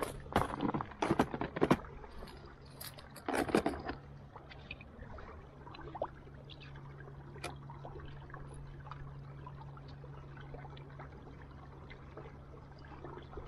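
Canoe moving over calm water: several knocks and clatters against the hull in the first four seconds, then a steady low hum with faint water trickles.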